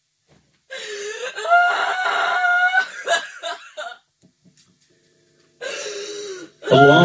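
A person wailing in long, high, wordless cries, a pause, then a shorter, lower cry; the healer addresses this voice as a possessing jinn. Just at the end a man's voice begins a long chanted note.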